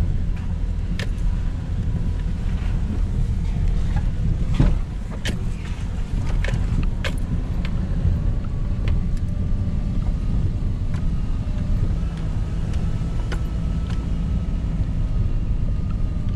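Car driving, heard from inside the cabin: a steady low rumble of engine and tyres, with scattered knocks and rattles as it goes over bumps and stones.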